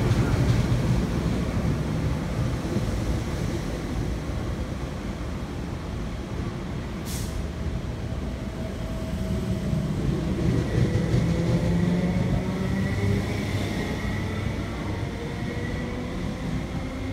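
MTR East Rail Line Metro-Cammell electric train (refurbished MLR stock) passing through a station platform without stopping: a steady, loud rumble of wheels on rails. A single sharp noise comes about seven seconds in, and a thin high tone joins the rumble about ten seconds in.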